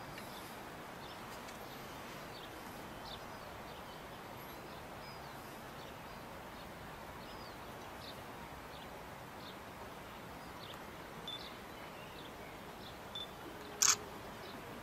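Outdoor ambience: a steady background hiss with scattered faint bird chirps. A brief, sharp, louder sound comes near the end.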